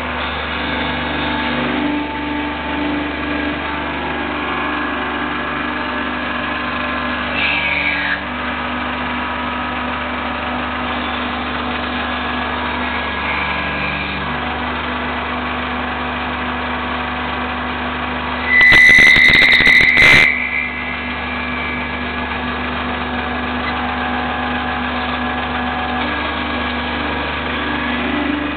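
Intorex TR90 automatic lathe running with a steady mechanical hum and several constant tones. About two-thirds of the way in, a louder shrill burst with a strong high tone lasts about a second and a half.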